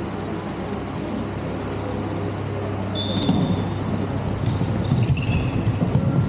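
Steady low hum, then from about three seconds in, short high squeaks of shoes and thuds of the ball on a hard floor during indoor five-a-side play.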